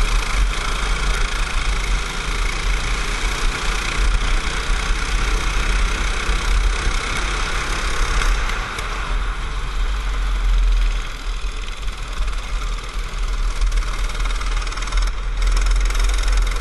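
Racing kart engine running hard, heard from an onboard camera on the kart, with a heavy low rumble under it; the sound eases for a few seconds past the middle before building again.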